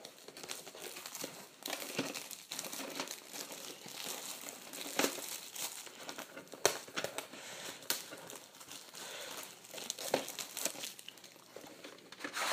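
Plastic shrink-wrap being torn and peeled off a VHS tape case by hand, crinkling with many sharp crackles throughout.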